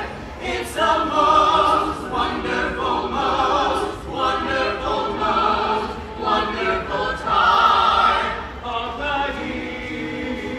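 Small mixed choir of Christmas carolers singing a cappella in harmony. Their sung phrases swell and ease, loudest about a second in and again about eight seconds in.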